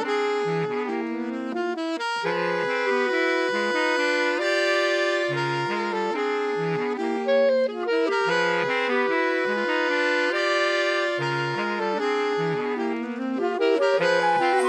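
Chamber-ensemble music from a playalong track for recording the fourth part: several instruments holding sustained chords over a moving bass line.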